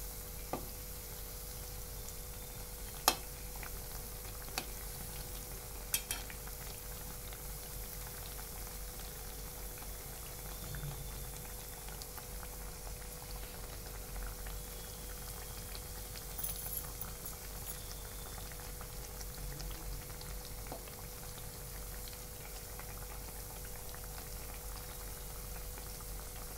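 Urad dal vadas deep-frying in hot oil in a kadhai, a steady bubbling sizzle with a faint steady hum underneath. In the first six seconds there are four sharp taps of the metal slotted spoon against the pan as the vadas are turned over.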